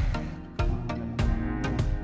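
Background music with a steady beat, about one beat every 0.6 seconds under held melodic tones.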